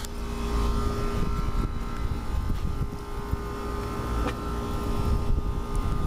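Rooftop air-conditioning condenser running steadily, a constant hum with several steady tones from the compressor and fan over a low rumble. The unit is running normally and not cutting out.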